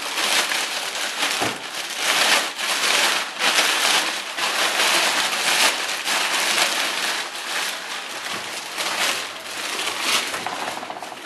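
Clear plastic bag crinkling and crackling as hands pull and bunch it, a dense run of crackles.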